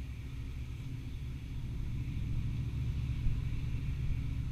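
Wind buffeting the microphone in a steady low rumble, with the faint buzzing of honey bees from the open hive.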